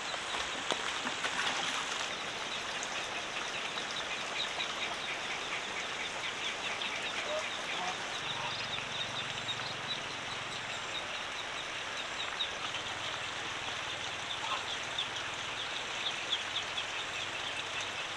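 Outdoor ambience: a steady hiss with runs of rapid, high-pitched chirping, and a faint low hum in the middle.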